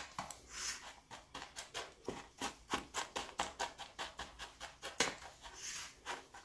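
Metal spoon pressing and scraping buttered crushed biscuit crumbs into the bottom of a metal springform pan: a quiet run of light taps several times a second, with a couple of brief scrapes.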